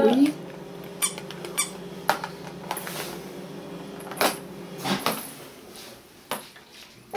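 A small plastic toy ball knocking and tapping on a plastic high-chair tray in a scattered series of light clicks, after a short rising vocal squeal that ends right at the start.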